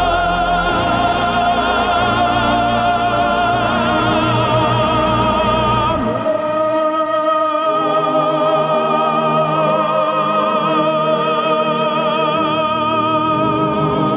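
Operatic tenor holding a long high note with wide vibrato over orchestra and choir. About six seconds in the harmony shifts and the deep bass drops away, and the music carries on sustained.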